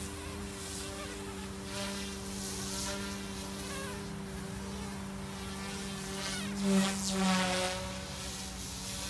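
OMPHOBBY M2 Explore electric RC helicopter hovering low: a steady high buzz from its motors and spinning rotor blades, briefly louder twice about seven seconds in as the pilot works the throttle.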